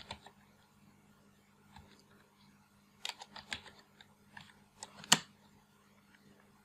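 Scattered clicks and taps on a computer keyboard. A few come near the start, a quick run about three seconds in, and the loudest single click a little after five seconds, over a faint steady low hum.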